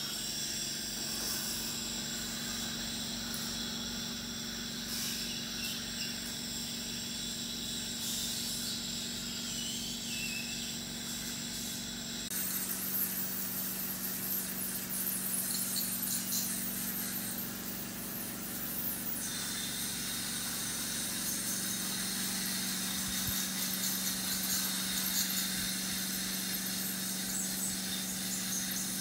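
Dental surgical suction hissing steadily at the patient's mouth, over a low hum and thin high-pitched whine of clinic equipment. The hiss grows louder for several seconds around the middle.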